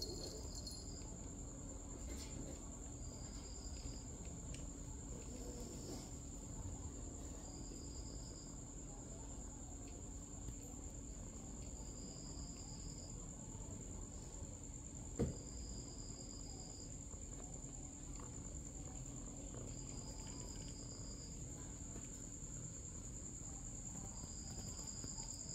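Insects trilling: a steady high trill throughout, with a shorter chirp at a lower pitch repeating about every four seconds, over a low steady hum. A single sharp click about fifteen seconds in.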